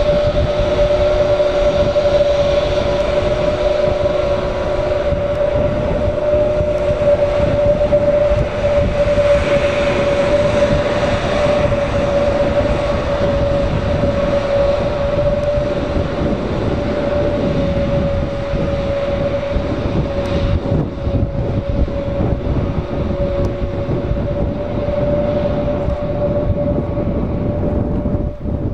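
Airbus A321neo's turbofan engines running at taxi idle as the jet taxis: a steady whine over a low rumble. The hiss thins out and the sound fades a little near the end as the aircraft turns away.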